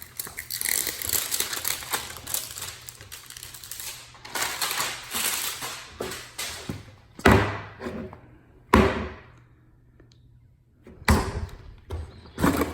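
Wrapping paper being torn and crinkled off a giant toy egg, with many small crackles, then four sharp thumps over the last few seconds.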